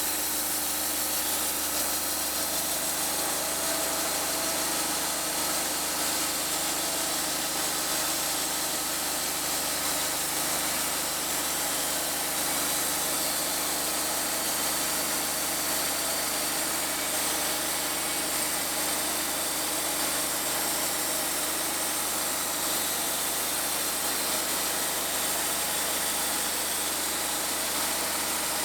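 Wood-Mizer portable bandsaw sawmill running steadily, its engine holding a constant speed with an even, unbroken mechanical noise.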